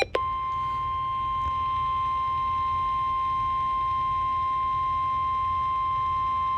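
Emergency Alert System warning tone: a single steady, unbroken tone near 1 kHz, the weather-radio alarm that follows the coded header and announces a warning.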